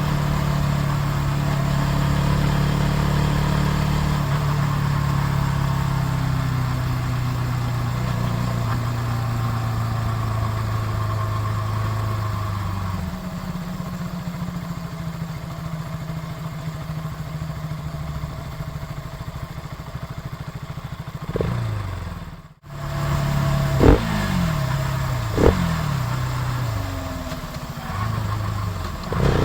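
KTM RC 200's single-cylinder engine running steadily, then settling to a lower speed about halfway through. In the last seconds, after a brief break, it takes two quick, sharp throttle blips, each revving up and falling back, and rises again at the end.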